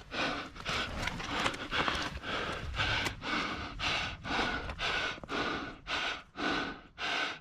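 A climber breathing hard and fast while climbing, panting in and out at about two breaths a second.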